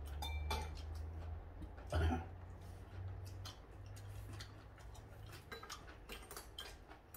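Chopsticks and spoons clicking and scraping against bowls and plates during a meal: scattered small clicks, with one louder sound about two seconds in.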